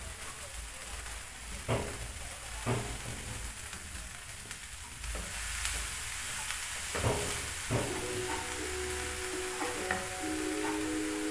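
Chopped sukuma wiki (collard greens) frying with onions in a pan with a steady sizzle, stirred with a wooden spoon that knocks against the pan a few times. Music with held notes comes in about eight seconds in.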